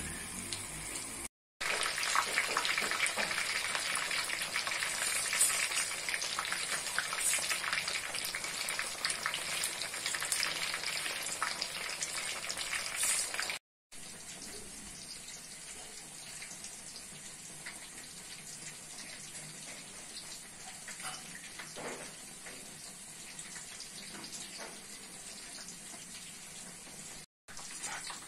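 Batter-coated green chillies deep-frying in hot oil: a dense crackling sizzle that stops abruptly about 14 seconds in. After that there is only a much quieter steady hiss.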